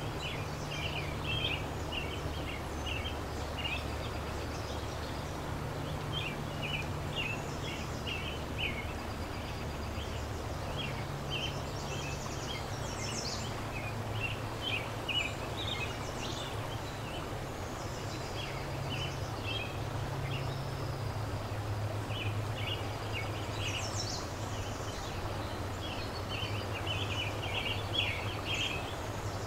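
River water flowing with a steady rush, and small birds chirping in quick clusters of short high notes throughout. A low steady hum sits underneath.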